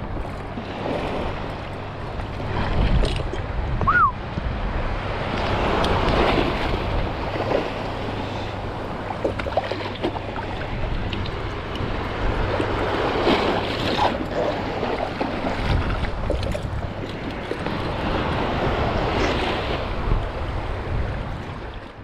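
Sea water washing and lapping in slow swells every few seconds, with wind rumbling on an action-camera microphone. There is a faint steady low hum, and a brief high chirp about four seconds in.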